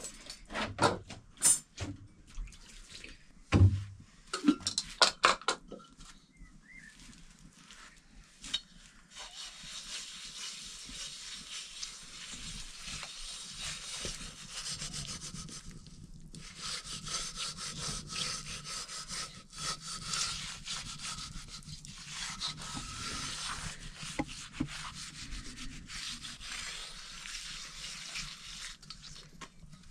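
A few sharp clinks and knocks of kitchen utensils, then long spells of steady, hard rubbing or scraping, with a short break partway through.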